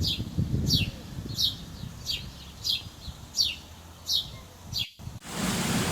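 A bird chirping over and over, one short falling chirp about every two-thirds of a second, over a low rumble that fades after the first second. Near the end the sound cuts out briefly and gives way to the steady hiss of heavy rain.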